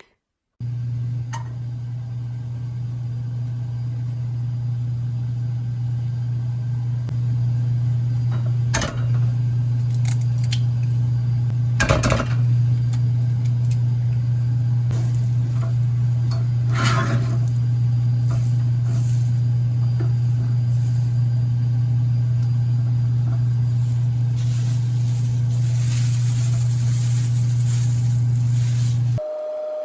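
A kitchen appliance running with a steady low hum, with a few light clinks of dishes. It starts abruptly just after the start and cuts off abruptly near the end.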